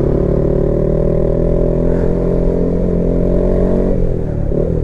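Honda CB150X's single-cylinder engine pulling at steady revs, then the revs falling away near the end as the throttle is eased.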